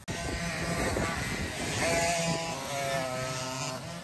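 Several dirt bike engines revving, their pitch rising and falling.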